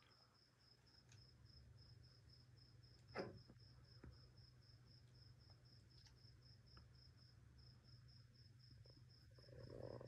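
Near silence: faint room tone with a steady low hum and a faint, even, high-pitched pulsing of about four or five pulses a second. A brief soft sound about three seconds in.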